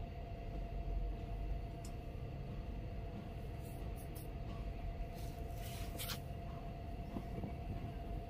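Fingers working through long hair, with a few short rustles of hair about 2, 4 and 6 seconds in, over a steady low rumble and a faint steady hum.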